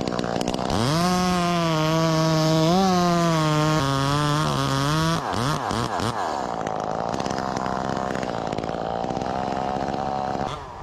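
Two-stroke chainsaw revving up to high speed about a second in and running hard, its pitch dipping now and then as it takes load. Around five seconds in the revs swoop down and back up, then it runs steadily until it drops off near the end.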